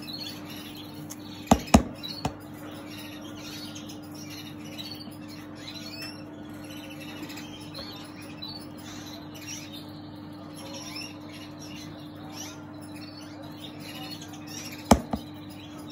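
Small cage birds chirping continuously in many short notes, over a steady low hum. A few sharp knocks stand out, a pair about one and a half to two seconds in and one near the end.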